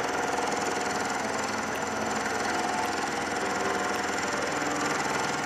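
Milling machine running steadily, its end mill cutting a flat on a half-inch cold-rolled steel round held in a 5C collet block.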